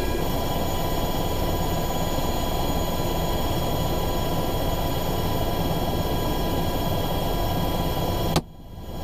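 UH-60 Black Hawk helicopter heard from inside the cabin in flight: a steady low rotor and engine rumble under a steady high whine of several tones. It cuts off abruptly with a sharp click near the end.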